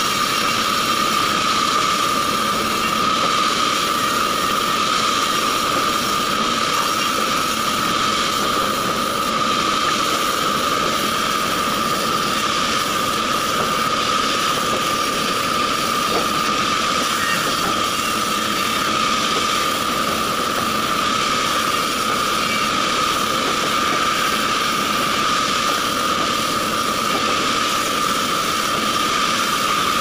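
Sawmill band saw running at a steady pitch with a constant high whine while it rips a log lengthwise into slabs.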